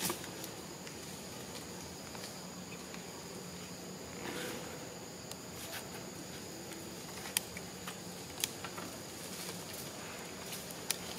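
Steady, high-pitched drone of insects, with a few short, sharp clicks scattered through it.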